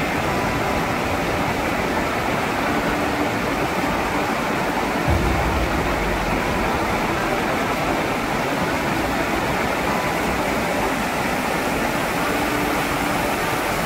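Steady rushing noise of water falling and running down a waterfall, with a deeper low rumble joining about five seconds in.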